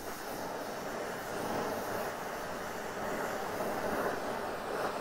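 Gas torch flame burning with a steady hiss, held on a thick steel casting to heat it toward cherry red so it can be bent straight.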